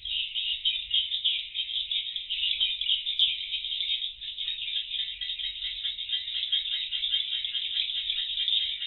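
Dense, continuous twittering of edible-nest swiftlets, a high, rapid chattering with no pause.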